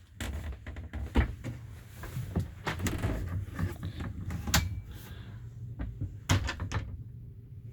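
Scattered knocks and clicks, a few of them sharp, over a steady low rumble.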